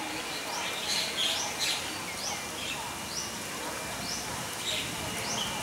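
Birds calling in the trees. One repeats a short, high, rising chirp about once a second, and others add scattered chirps.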